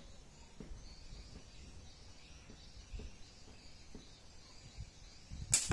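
A slingshot shot: one sharp crack near the end as the rubber bands are released and the 8 mm steel BB is fired at the target. Faint high chirping runs underneath.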